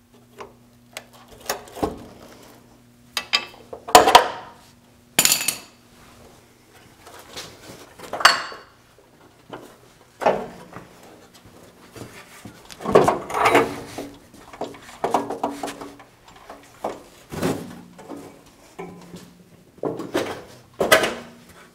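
Irregular metal clanks, knocks and rattles as a rusty steel radiator core support is worked loose and lifted off the front frame of a Chevy K10 pickup.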